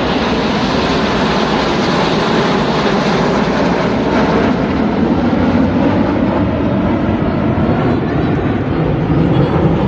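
Jet engine noise from display aircraft flying past: a loud, steady rushing sound that swells slightly around the middle.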